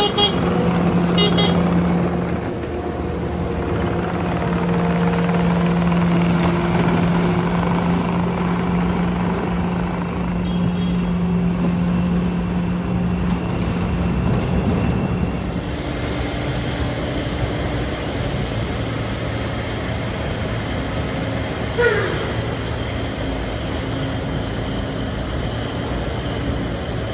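Heavy diesel trucks and construction equipment running in busy street traffic: a steady engine hum that gives way to a different engine note about halfway through, with a short falling squeal about 22 seconds in.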